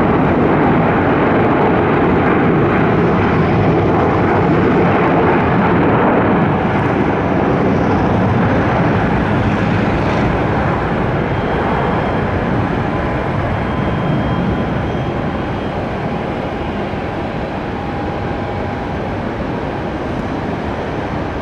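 Jet engines of a landing Boeing 757-300, a loud, steady rush of engine noise that slowly fades over the second half.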